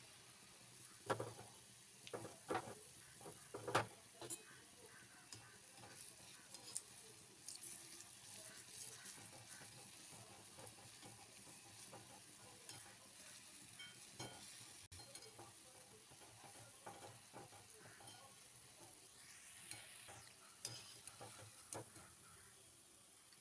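Palm fritters deep-frying in a pan of hot oil, a faint steady sizzle, with a utensil stirring and knocking against the pan: several sharp knocks in the first four seconds and a few more near the end, as the fritters are lifted out with a wire strainer.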